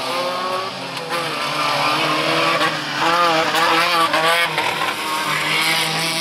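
Off-road race 4x4's engine revving hard, its pitch wavering up and down quickly and loudest about halfway through.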